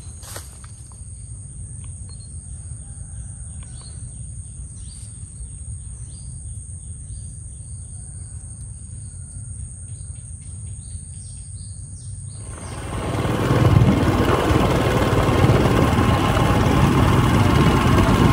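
Forest ambience: a steady high insect drone with scattered bird chirps. About 13 seconds in it cuts abruptly to a motorcycle ride, the engine running under loud wind noise.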